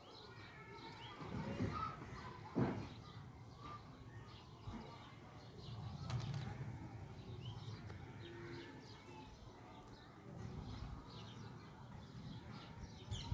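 Faint rustling of cotton dress fabric as lining and cloth pieces are handled and spread on a table, with a light knock about two and a half seconds in.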